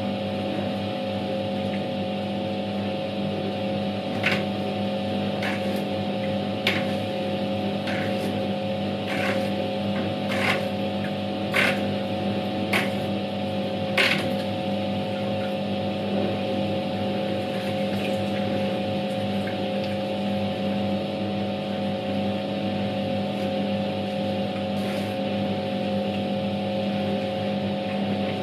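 Światowit M4 impeller washing machine running a wash: its SED-110-4 capacitor motor hums steadily while the impeller churns water and laundry in the tub. A run of about ten short sharp clicks comes in the middle, and one more near the end.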